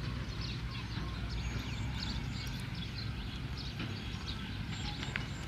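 Rural outdoor ambience: a steady low rumble with small birds chirping busily over it.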